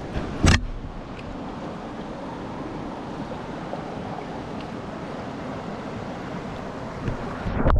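River water rushing steadily in the current, with one sharp knock about half a second in.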